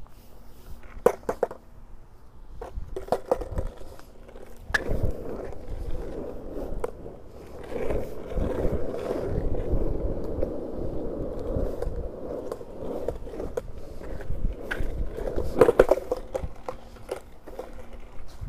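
Skateboard rolling over asphalt: a steady rolling rumble of urethane wheels from about five seconds in, with sharp clacks of the board and the rider's feet before it and again near the end.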